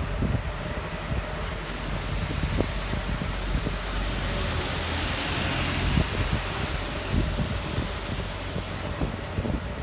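Road traffic on a rain-wet street: a vehicle passes with a tyre-spray hiss that swells to a peak about halfway through and fades, over a low traffic rumble.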